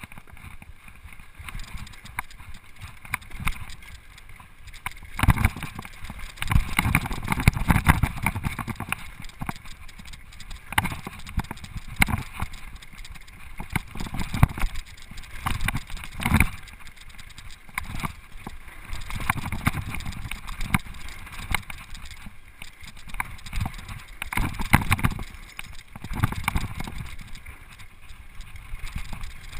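Mountain bike riding fast down a dirt singletrack: tyres crunching over dirt and gravel, and the bike and camera mount rattling and clattering over bumps in uneven surges.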